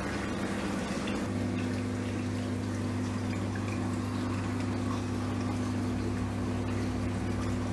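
Steady hum of reef aquarium pumps with water running and trickling through the tank's circulation.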